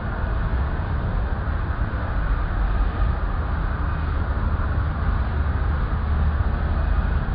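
Steady low rumble and hum of running heavy machinery, with a fainter even hiss above it and no sudden knocks.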